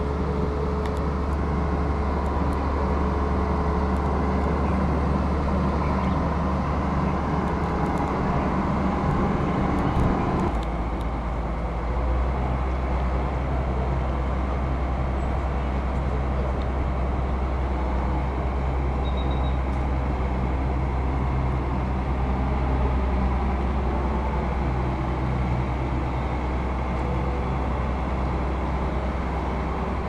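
Heavy diesel engine of a mobile crane running steadily under load as it hoists a bus; its note changes abruptly about ten seconds in.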